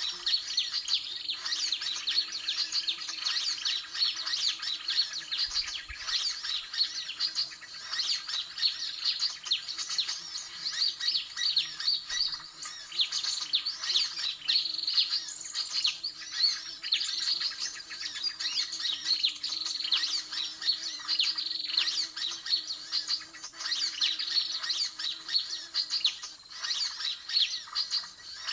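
Dense, unbroken chatter of many small birds chirping and squawking rapidly: the 'suara ribut' noisy-flock call used as a lure to draw sunbirds in for trapping. A faint, low, steady hum runs underneath.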